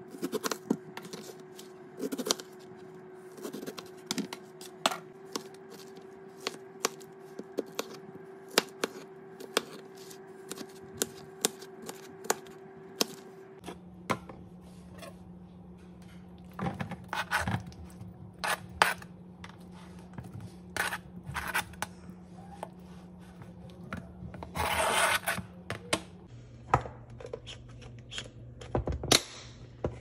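Kitchen knife cutting pineapple on a plastic cutting board: a run of sharp knocks as the blade meets the board. Later the chunks are scraped off the board into a plastic storage container, with a longer scrape about 25 seconds in and a sharp click near the end as the container's lid is shut.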